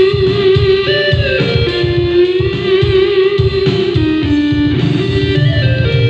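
Yamaha electronic keyboard playing an instrumental intro: a lead melody of long held notes that slide between pitches, over a steady backing beat with bass.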